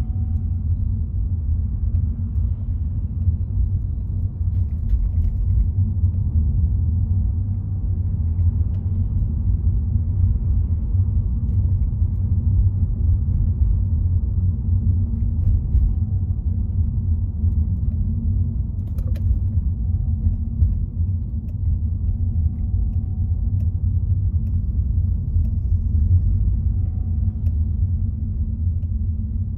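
Steady low rumble of a car driving on the road, engine and tyre noise, with one brief click about two-thirds of the way through.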